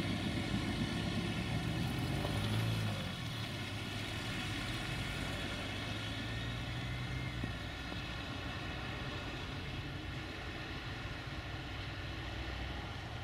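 Freight train's covered wagons rolling away along the track, a steady low rumble that slowly fades as the train recedes.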